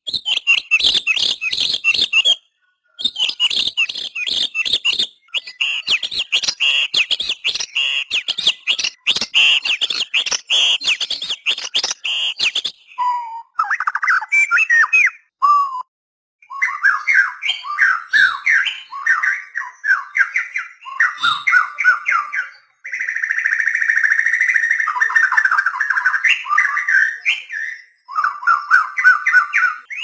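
White-rumped shama singing: fast, dense chattering phrases at first, then from about halfway lower, fuller whistled phrases that slide up and down, delivered in bursts with short pauses between.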